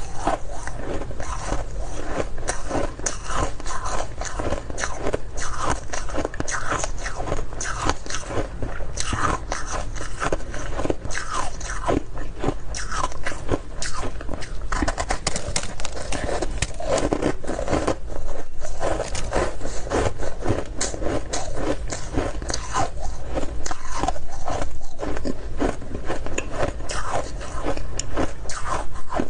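Person biting and chewing chunks of frosty purple flavoured ice, a dense run of crisp crunches.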